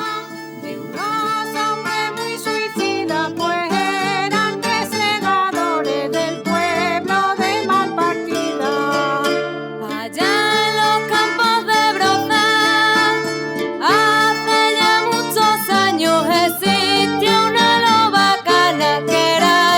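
Traditional Extremaduran folk song played on guitars and other plucked strings, with singing. The music breaks off briefly just before halfway and comes back in strongly.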